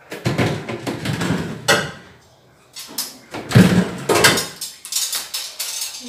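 Refrigerator wire shelves being pulled out of their rails, clattering and scraping against the plastic liner, in two spells with a short pause between them.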